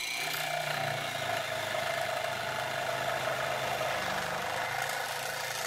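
Restored shop-made electric sabre saw (jigsaw) running steadily on a test run. Its motor gives a steady hum and whine, and the whine rises to speed in the first moment after switch-on.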